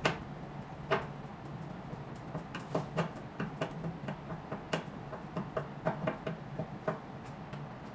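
Irregular clicks and taps of screws and a steel holding bracket being worked by hand against the plastic side of a machine housing, with two sharper knocks in the first second and a run of lighter clicks after. A low steady hum lies underneath.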